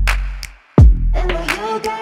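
Background music: an instrumental stretch of a song, with a deep, sliding bass drum hit less than a second in, sharp percussion ticks, and held synth notes coming in after it.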